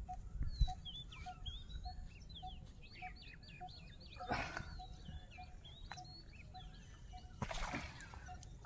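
Outdoor bird chirping: many short, quick calls, with one low note repeated evenly about twice a second. Two brief rustling noises come about four seconds in and again near the end.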